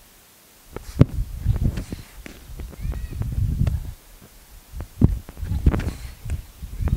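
Sharp knocks and dull thumps from a baseball fielding-and-throwing drill: balls scooped off wet grass and thrown at a plastic trash-can target. There is one loud knock about a second in and two more around five to six seconds in, with low rumbling between them.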